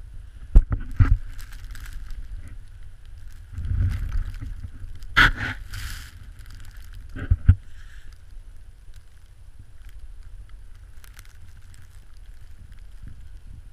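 Welsh corgi digging into a packed snow mound: scraping and crunching snow, with several sharp knocks, over a steady low rumble on the microphone.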